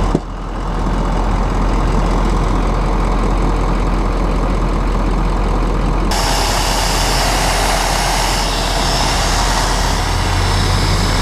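Power drill boring a hole into a Duramax diesel's exhaust manifold for an EGT probe, running steadily and loudly. About six seconds in the sound turns harsher and higher as the bit cuts.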